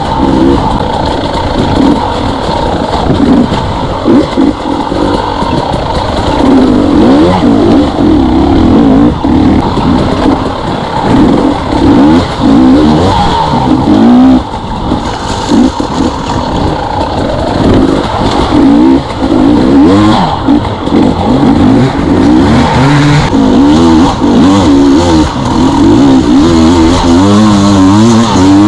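KTM two-stroke dirt bike engine being ridden hard, its revs rising and falling constantly as the throttle is worked on and off.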